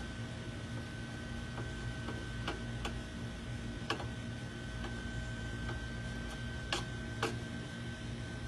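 A few scattered light clicks and taps at irregular times, over a steady low hum and a thin, steady high-pitched whine.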